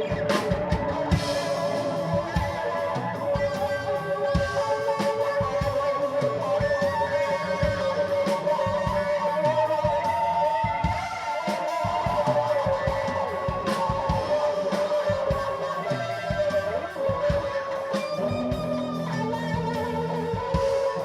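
Rock music without vocals: an electric guitar playing a sustained melodic line over drums.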